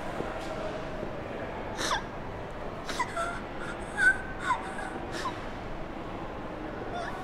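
A woman crying: about five short, catching sobs and gasping breaths at uneven intervals, over a steady background hiss.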